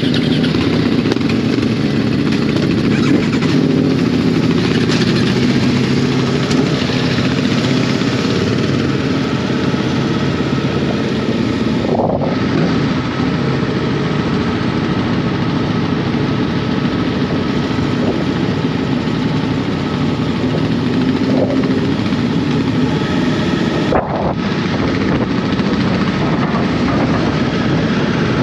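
Aprilia Tuono V4 1100 Factory's V4 engine running steadily while the bike is ridden at a constant pace, with wind rushing over the bike.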